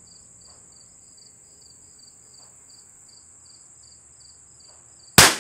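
Crickets chirping steadily in a high pulsed trill, then a single sharp shot from a .22 LR bolt-action rifle near the end.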